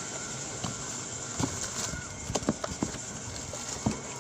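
Light, irregular knocks and clicks, about six in all, from handling instant-noodle cups and utensils, over a steady background hiss.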